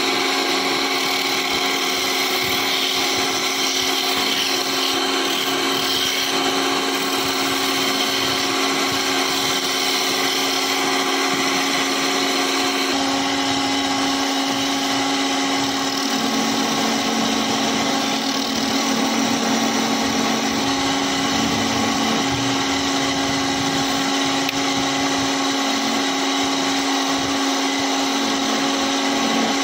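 Wood lathe motor running with a steady whine while a hand chisel cuts the spinning wooden spindle, adding a hiss of shaving. The tone shifts slightly about halfway through.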